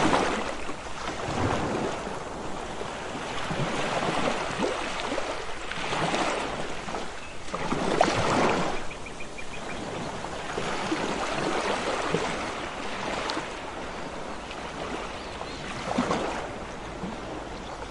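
Sea waves washing onto a beach, the wash swelling and falling back every few seconds.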